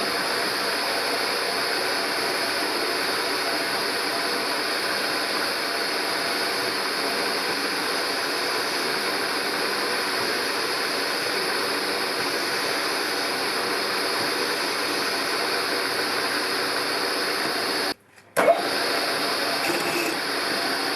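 A drill motor running steadily while drilling out a broken bolt in an exhaust manifold. The noise drops out for about half a second near the end, then resumes unchanged.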